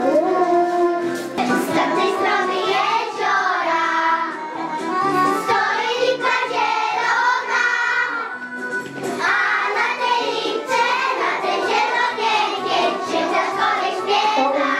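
A group of young preschool children singing a Polish folk song together.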